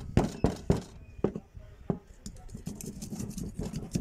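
Screwdriver scraping and clicking against the rusted, dirt-packed frame and cylinder of a revolver, clearing out the dirt: a handful of sharp metal clicks in the first two seconds, then lighter scratching.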